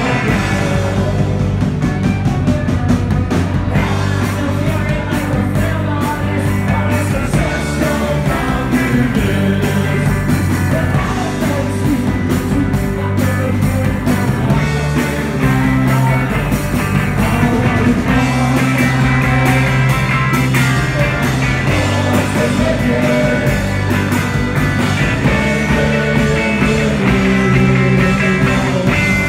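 Live rock band playing loud: electric guitars, bass and drums with a singer, heard from the crowd.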